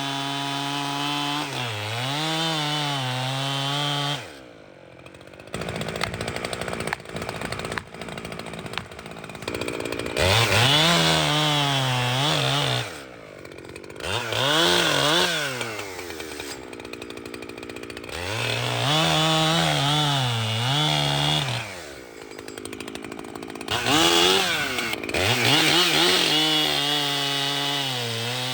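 A new Echo 7310 two-stroke chainsaw, on its first tank, cutting wood at full throttle. Its engine note rises and sags under load and drops back to idle between cuts three times.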